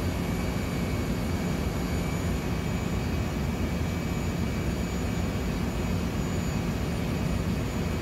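Steady drone of running machinery in a ship's engine room: a low rumble with a few faint, steady high whines on top, unchanging throughout.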